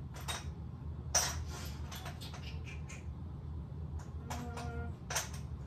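Scattered clicks and clinks of small hard objects being sorted through: rummaging among cake-decorating piping tips. A steady low hum runs underneath.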